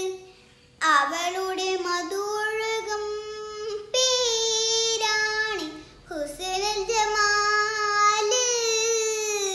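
A young girl singing a Malayalam Mappila song without accompaniment, in long held notes that bend and slide, with brief breaths about half a second in and around six seconds in.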